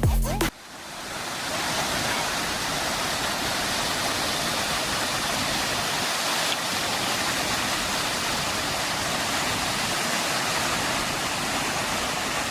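Steady rush of falling water, fading in just after background music cuts off about half a second in, then holding at an even level.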